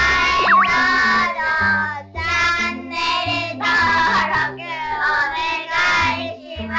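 Upbeat outro jingle: a high, childlike singing voice in short phrases over a bouncy, stepping bass line, with a cartoon-style rising slide sound effect just after the start.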